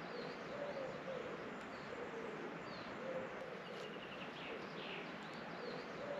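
Outdoor birdsong. A pigeon gives a low cooing phrase that comes back every few seconds, while smaller birds make short high chirps and down-slurred calls over a steady background hiss.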